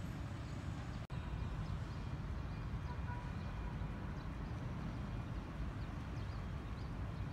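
Outdoor ambience: a steady low rumble, cut off for an instant about a second in, with faint short high chirps over it.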